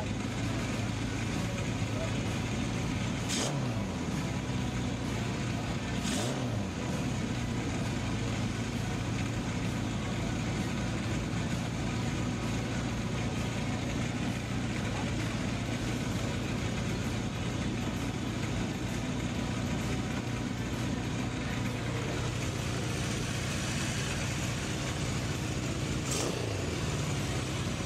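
Custom motorcycle's bored-out Kawasaki inline-four engine idling steadily.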